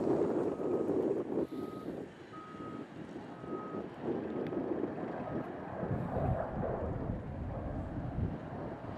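Reversing alarm beeping about once a second over the running diesel of a Caterpillar 972M XE wheel loader working a gravel pile. The beeps fade out after about five seconds, and the engine then grows into a deeper rumble as the loader works.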